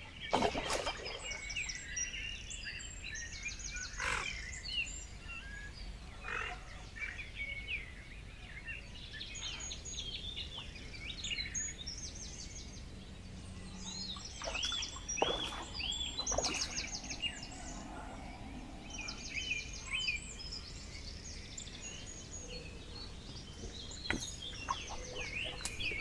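Several birds singing at once, a dawn chorus of overlapping whistled phrases and rapid trills. A few sharp clicks or knocks cut in, the loudest just after the start.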